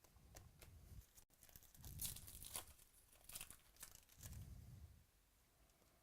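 Faint tearing and crinkling of trading-card pack wrappers, with scattered soft clicks and rustles of cards being handled.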